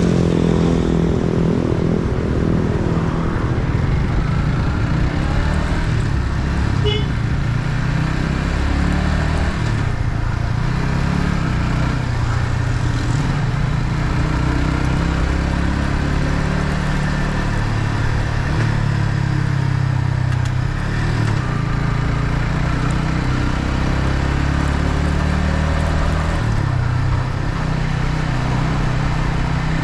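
Yamaha MT-15's 155 cc single-cylinder engine running through its stock exhaust under way, heard from the bike. The engine note rises and falls several times with throttle and gear changes.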